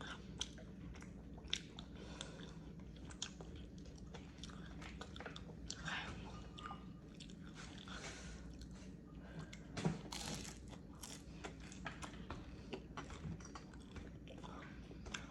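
A person eating close to the microphone: chewing and biting, with small crunches and wet mouth clicks and smacks. A sharper click comes about ten seconds in.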